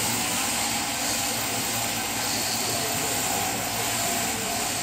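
Overhead-drive sheep-shearing handpiece running steadily as it clips through a sheep's fleece, a constant high-pitched buzz over a low hum.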